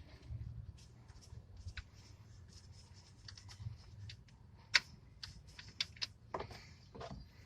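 Scattered light clicks and taps of hands and tools being handled, with one sharper click about halfway through, over a low steady hum.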